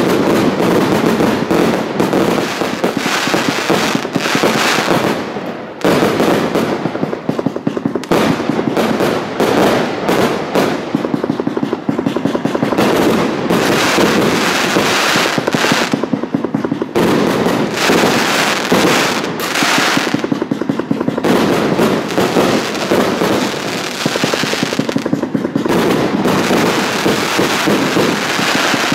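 A 138-shot 'Chinchihua B' fireworks cake firing shot after shot in rapid succession. It makes a dense, continuous barrage of launches and aerial bursts, with a few brief lulls.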